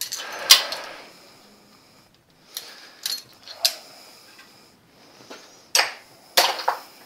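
Steel hand tools clinking and clanking against each other and on the studs of a cast-iron Ford flathead V8 block: a string of sharp metal clanks, the loudest about half a second in, with several more spread through the rest.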